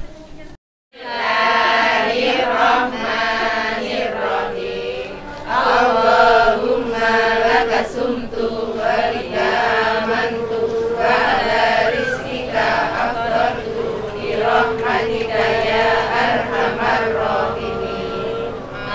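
A group of women chanting a prayer together in unison, in phrases with short breaks.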